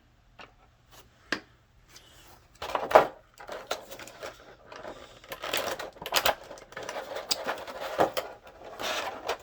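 Plastic action-figure packaging being handled and pulled apart: a few sharp clicks, then continuous crinkling and crackling from about three seconds in.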